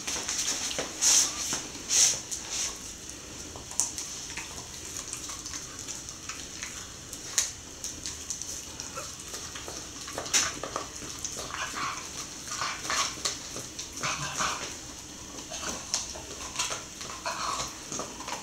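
A cocker spaniel gnawing and crunching a pork bone: irregular sharp cracks and clicks, the loudest about one, two and ten seconds in.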